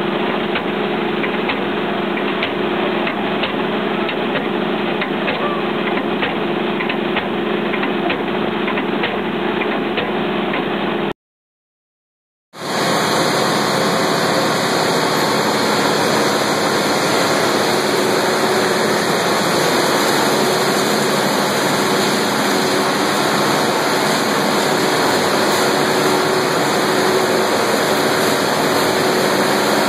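Cassava starch plant machinery running steadily. First a steady motor hum with frequent small knocks as cassava roots feed into the hopper. Then, after a sudden gap of silence about a third of the way in, a steadier, brighter drone from the centrifuges and pumps of the starch line.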